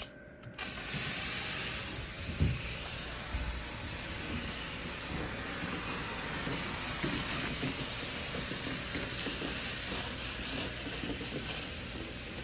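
Boiling water poured onto a red-hot kashering stone, hissing loudly as it flashes to steam. The hiss starts abruptly about half a second in, then settles to a steady hiss, with a single thump about two and a half seconds in.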